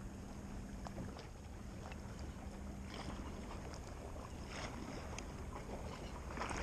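Small waves lapping and sloshing around a wading angler, with a faint low steady hum under them. A few light clicks and rustles come from hands working a scent bottle and a soft-plastic lure.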